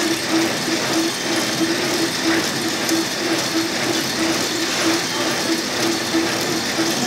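Pillow-pack (flow-wrap) packing machine for chocolates running, with a steady mechanical clatter and a hum that pulses evenly about twice a second.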